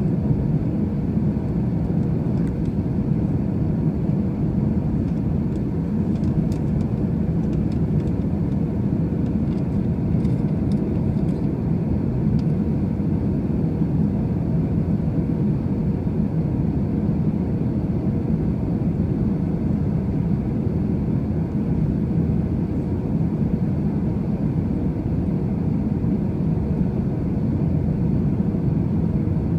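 Steady low rumble of an Airbus A319 airliner's engines and rushing air, heard from inside the passenger cabin during final approach.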